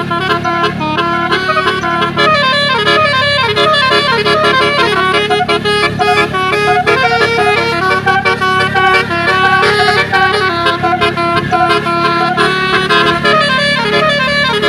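Bus telolet horn, a multi-tone air horn, playing a quick stepping melody without a break, over a steady low engine drone.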